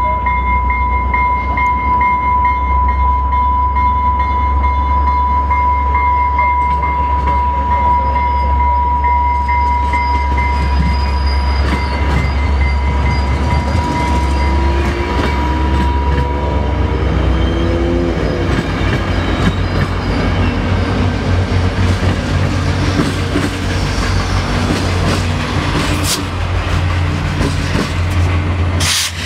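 New Mexico Rail Runner commuter train passing at speed, its bilevel coaches rumbling and clattering by on the rails. A steady high-pitched tone runs through the first half and fades out about halfway.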